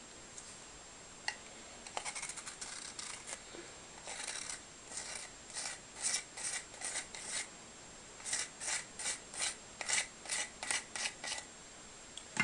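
Rhythmic hand scraping on paper, short rasping strokes at about two to three a second, with a short pause around the middle. It is the sound of sulfur being worked onto paper for a homemade fuse.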